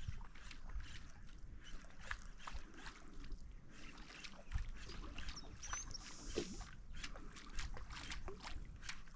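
Water lapping and sloshing, with many small clicks and knocks of fishing gear being handled, and a brief high whistle about six seconds in.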